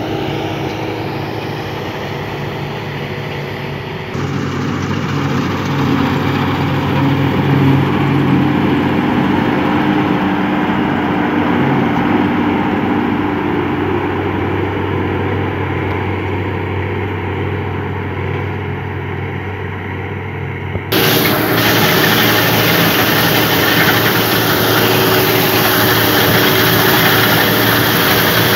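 Sampo Rosenlew SR2065 combine harvester working in the crop: a steady engine hum under the rush of the cutting and threshing. About four seconds in it gets a little louder, and about two-thirds of the way through it jumps to a much louder, harsher noise as the machine is heard from right up close.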